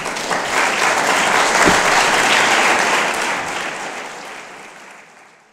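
Audience applauding, building up at first and then fading out over the last couple of seconds.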